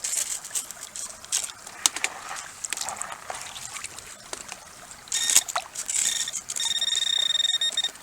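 Water splashing and sloshing as a metal detector's search coil is swept through a creek, then the detector's beeping tone: a short beep about five seconds in, followed by a steady tone held for over a second near the end, signalling a target under the coil.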